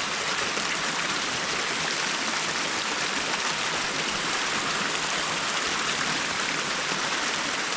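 Creek water rushing over shallow rapids: a steady, even rush.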